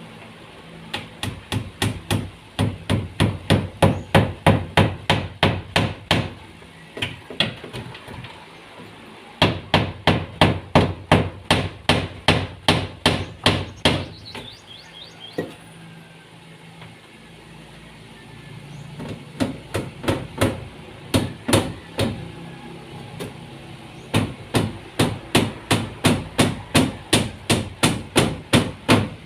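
A hammer striking repeatedly in runs of quick, even blows, about three a second, with short pauses between runs.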